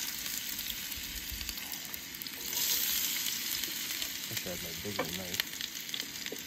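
Food frying in lard in a pan, a steady sizzle that gets louder about two and a half seconds in.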